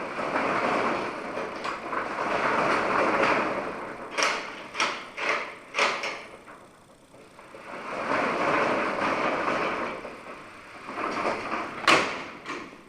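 Metal roll-up door and its slide latch being worked to test the slide through the strike plate. Two stretches of steady sliding noise, each a few seconds long, with several clacks between them and a sharp clack near the end.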